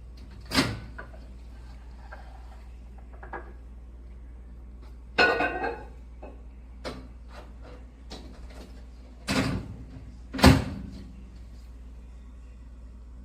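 A few separate sharp knocks and clunks of things being handled. The one about five seconds in trails into a short rattle, and two heavier clunks come near the end.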